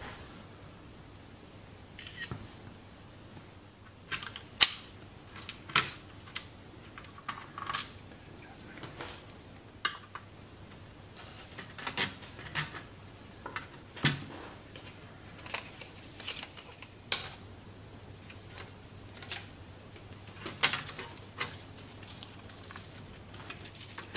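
Irregular clicks and clacks of the plastic disc-drive mechanism of an LG BD550 Blu-ray player being handled and taken apart, sharp snaps coming every second or so from about four seconds in.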